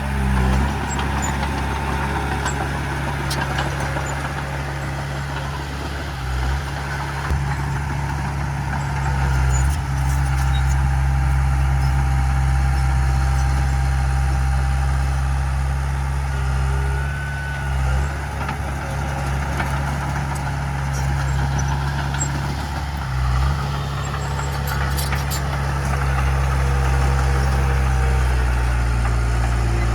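Heavy diesel engine of earthmoving machinery running steadily under a constant low drone, its note shifting briefly a few times.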